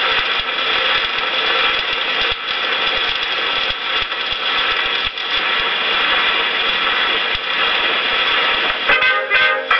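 Steady surface hiss of an Edison Diamond Disc's lead-in groove playing through a diamond-stylus phonograph reproducer, with faint low ticks. About nine seconds in, the 1920s dance orchestra recording starts, led by brass.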